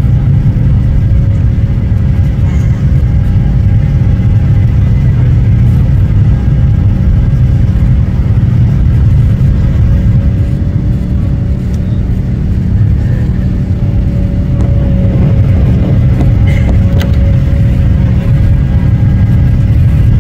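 Airliner cabin noise: the steady low rumble of jet engines and rushing air, with a few faint steady hums above it.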